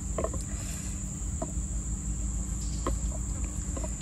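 Steady high-pitched drone of insects, with about four short clucks spaced through it.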